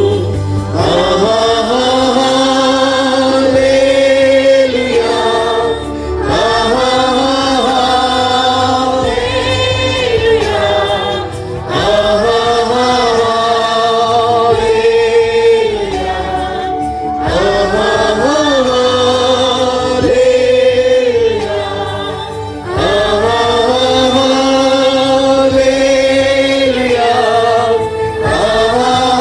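Choir singing a Christian worship song over instrumental backing, in long held phrases of a few seconds each with short breaks between them.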